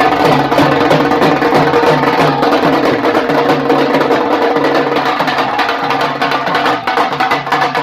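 Music with a steady, repeating drum beat.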